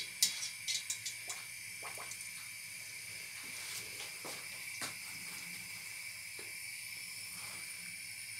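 Arancini deep-frying in hot oil in a stainless steel pot: a steady sizzle, with a few sharp clicks in the first second and a half and occasional crackles after.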